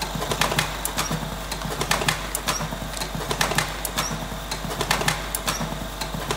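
Electric cigarette-filling machine running in turbo mode, its mechanism clicking two or three times a second over a steady low hum.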